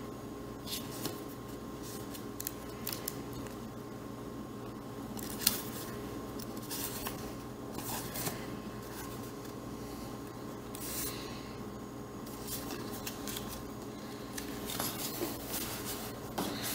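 Paper pages of a Field Notes graph memo book rustling and flicking as they are turned by hand, with scattered short crisp rustles and a louder cluster of handling sounds near the end, over a steady faint hum.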